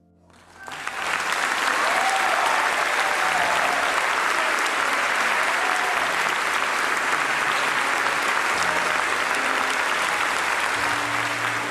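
Audience applauding steadily. It swells in about half a second in and eases off near the end.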